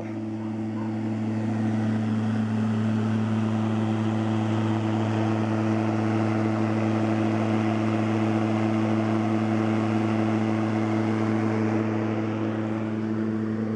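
Food truck's wall-mounted exhaust fan running, blowing air out through its louvered vent: a steady motor hum over a rush of air. It grows louder over the first couple of seconds as the vent is approached, then holds level.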